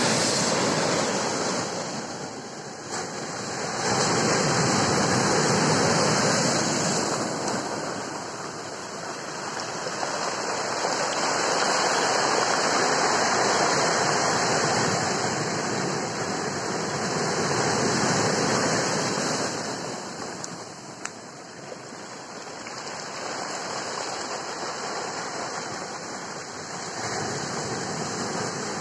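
Surf breaking and washing up over a beach of dark volcanic stones, the rush of water swelling and easing every several seconds as each wave comes in and draws back.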